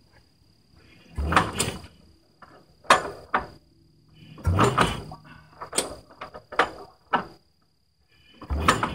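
1953 Farmall Super H's four-cylinder engine being hand-cranked: a series of about seven clunks from the crank and engine turning over at uneven intervals, without the engine firing. It won't start, which the owner suspects is from no spark.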